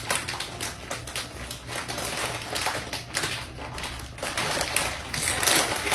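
Packaging being unwrapped by hand: a dense, irregular run of crinkles, crackles and taps that grows louder near the end.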